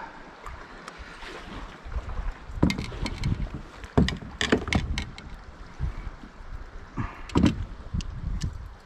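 Irregular knocks and clatter of a kayak paddle and fishing gear against a sit-on-top kayak's hull and the river rocks, loudest about three, four and seven seconds in, over a low rumble of wind on the microphone.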